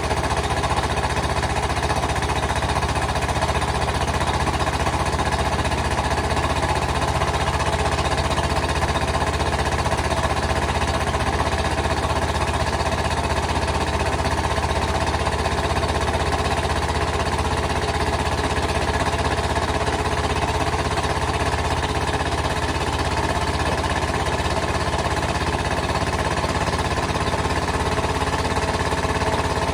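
Vintage Caterpillar 13000 diesel engine, the 1940s D8 bulldozer engine, running steadily at a constant speed.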